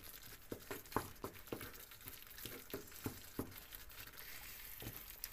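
Tomato sauce sizzling and bubbling around stuffed squid in a frying pan, with frequent small pops and ticks. A wooden spatula nudges and scrapes in the pan.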